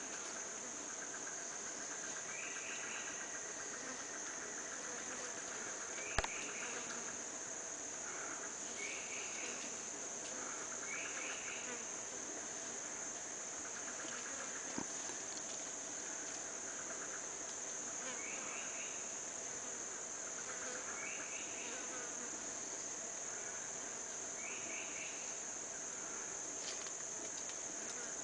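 Tropical forest insect chorus: a steady high-pitched drone, with a short trilling chirp repeated every few seconds. A sharp click about six seconds in and a smaller one near the middle.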